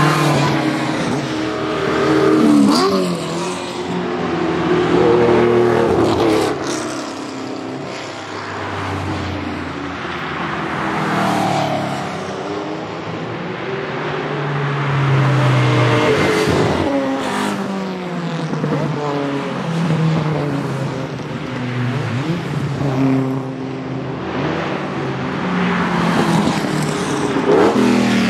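Historic race cars, among them a Ford Mustang Shelby and a BMW M3 E30, passing one after another through a bend. Their engines rev up and drop back through gear changes, each car's sound swelling and fading as it goes by.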